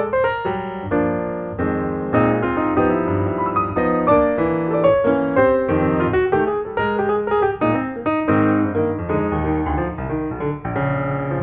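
Background piano music: a steady run of notes over low chords.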